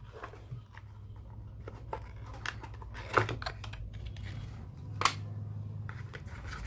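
Small cardboard box and paper packaging being handled: scattered taps, scrapes and rustles, with louder knocks about three and five seconds in.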